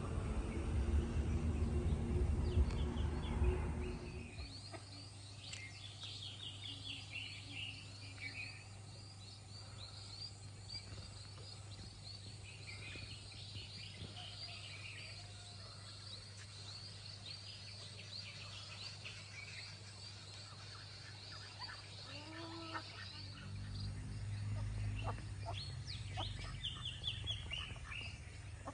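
Small birds chirping in quick, high trills, with a few low calls from ducks in the last several seconds. For the first four seconds the birds are covered by a loud low rumble, which stops suddenly.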